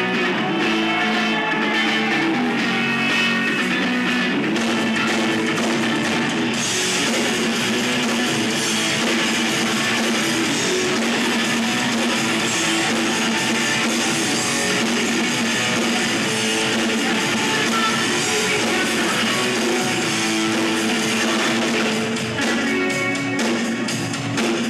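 Live rock band playing without vocals, led by guitar. The sound turns brighter and fuller about six seconds in and thins out again near the end.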